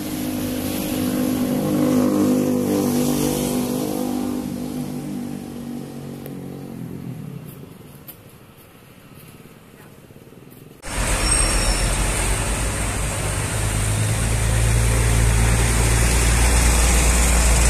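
A motorcycle engine passes close by, loudest a couple of seconds in, then fades away. About eleven seconds in, the sound jumps abruptly to a loud, deep diesel rumble of approaching concrete mixer trucks, with a wide rushing noise on top.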